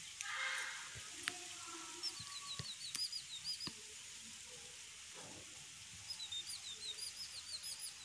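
Small birds chirping faintly in quick runs of short, high, hooked chirps, one run about two to four seconds in and another near the end. A brief distant call is heard near the start.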